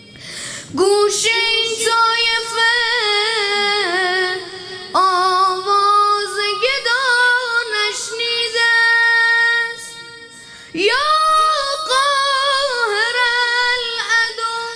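A choir of boys with unbroken voices singing a devotional song together in three phrases, with short breaks about a third and two-thirds of the way through. A steady held note sounds underneath.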